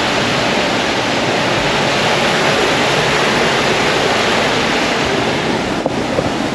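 A small waterfall rushing steadily.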